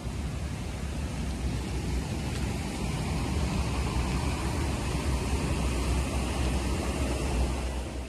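A steady rushing noise with a deep rumble underneath, ending abruptly near the end.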